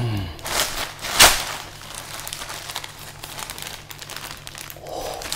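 Thin plastic parcel bag crinkling and rustling as it is handled and pulled open, with one sharp, louder crackle about a second in.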